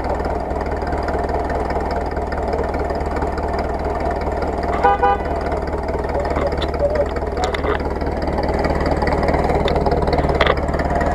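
Off-road 4x4's engine running steadily at low revs, a constant low hum, with a few short knocks later on.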